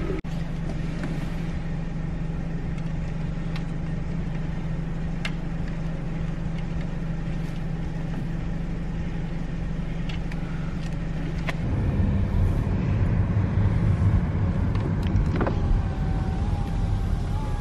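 Car engine idling, heard from inside the cabin as a steady low hum with a few faint clicks. About twelve seconds in it gets louder and rougher as the car pulls away and drives off.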